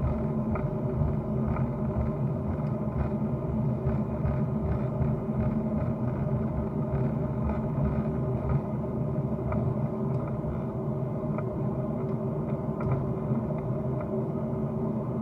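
Steady low rumble of a vehicle running, an even drone that holds without change, with faint scattered ticks.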